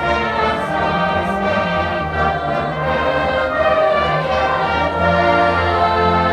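Marching band playing long held chords that change every second or two.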